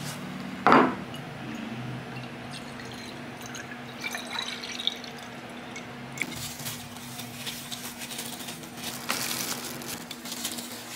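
A ceramic bowl set down on a wooden table with one sharp clunk, then liquid splashing and running as milk is poured from a tin can into the bowl, with a few small clinks. A steady low hum sits underneath.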